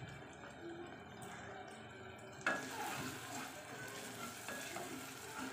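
Wooden spatula stirring tomatoes frying in a pressure cooker pot: a knock against the pot about halfway through, then a steady sizzle with scraping and light clicks as the mixture is turned.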